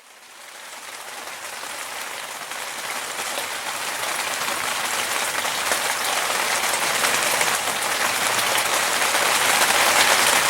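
Water from a small waterfall feature splashing steadily into a koi tank, a continuous splashing hiss that grows louder over the first few seconds.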